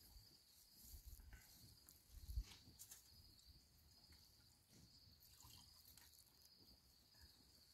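Faint, steady high-pitched chirping of crickets, with scattered soft clicks of spoons against plates and a couple of low bumps.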